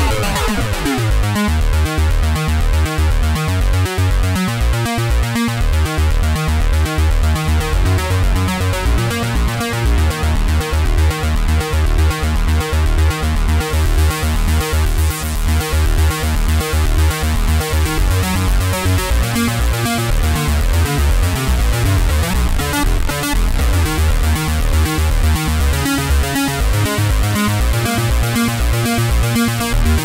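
TAL J-8 software synthesizer, an emulation of the Roland Jupiter-8, playing its 'Bring The Acid' preset: a fast, repeating acid-style synth pattern over a heavy bass. Its tone shifts as the filter cutoff and modulation are changed.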